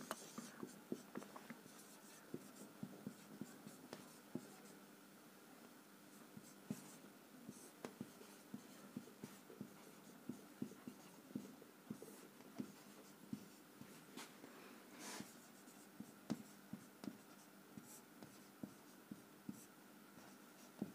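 Marker pen writing on a whiteboard: faint, irregular taps and short scratchy strokes as letters are written, with a slightly longer stroke about fifteen seconds in.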